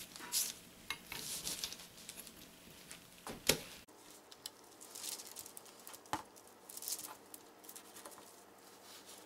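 A knife slicing through roast leg of lamb on paper over a cutting board: faint scraping and rustling as the blade saws through the meat, with a sharper click a little past a third of the way in and another later.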